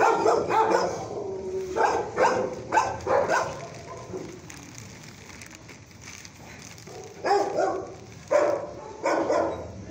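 Dogs barking in shelter kennels, in short scattered bursts: a run of barks in the first three seconds or so, a quieter stretch, then several more barks from about seven seconds in.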